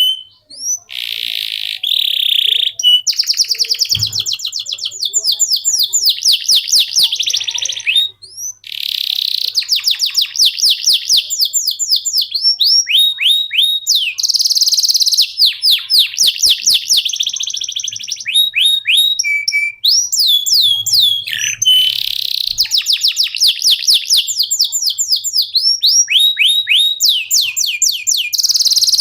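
Canary singing a long, fast song of rapid trills and quickly repeated descending notes, with a few brief breaks between phrases.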